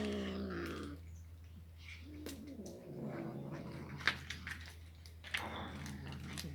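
A cat meowing three times, the first call falling in pitch, with a couple of sharp clicks in between.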